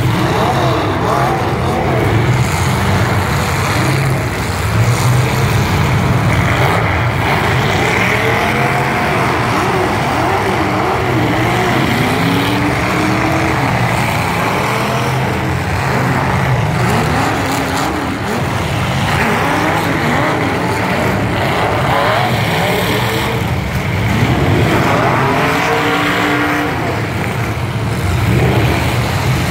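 Several demolition-derby truck engines revving hard at once, their pitches rising and falling over each other in a steady, loud din.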